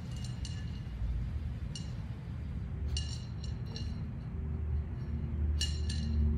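Light clinks and ticks on a plate as a Maltese eats from it, a dozen or so sharp little knocks, some in quick clusters, each with a brief ring.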